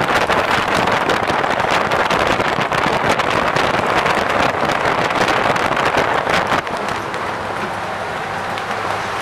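Moving bus: wind rushing and buffeting the microphone at an open window, over the bus's engine and road noise. It eases a little about two-thirds of the way through.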